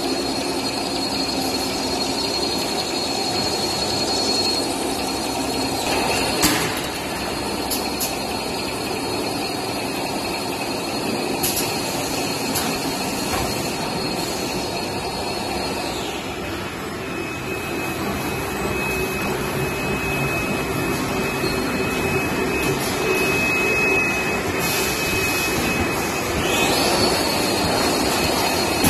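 Steady whirring and hum of tissue-paper converting machinery (toilet-paper rewinder, log saw and roll conveyors) running. A thin high whine over the hum drops in pitch about halfway through and rises again near the end, and a few sharp clicks sound, the loudest about six seconds in.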